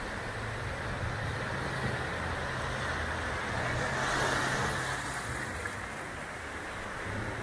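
Small surf breaking and washing up the sand, swelling about four seconds in, with a low steady engine hum underneath.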